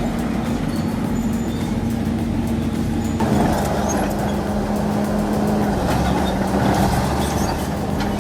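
Old truck's engine running steadily. It grows louder and rougher about three seconds in, and its pitch drops slightly near six seconds.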